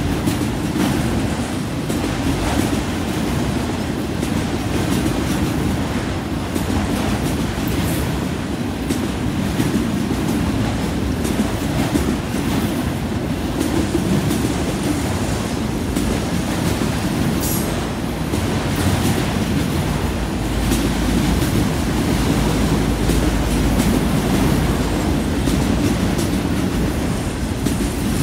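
Freight train of autorack cars rolling past, its steel wheels running on the rails: a steady rumble with scattered clacks. The low rumble grows heavier in the last third.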